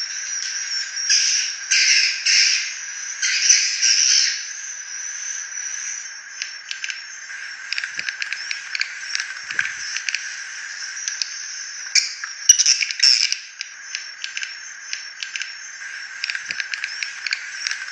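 Swiftlet lure recording of edible-nest swiftlet calls, the kind played to draw birds in and get them to roost. Rough, buzzy chirps come in loud bursts over the first few seconds. Then a long run of rapid clicking twitters follows, with another loud burst about twelve seconds in.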